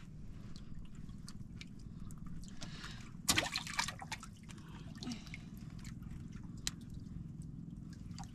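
Water lapping and dripping against a wooden outrigger boat, with scattered small clicks and one brief louder splash about three seconds in.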